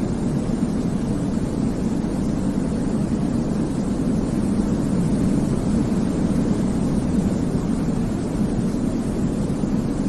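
Continuous baby-sleep white noise: an even, low, rumbling hiss with most of its weight in the deep range, holding steady without change.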